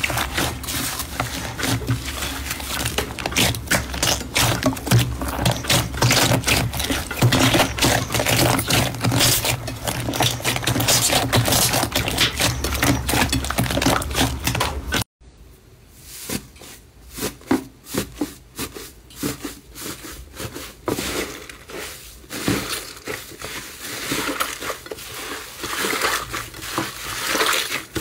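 Hands squeezing and kneading a large batch of soft slime, with dense squishing and popping. About halfway through it cuts off suddenly, then slime is worked again, quieter at first, with crackling that grows toward the end.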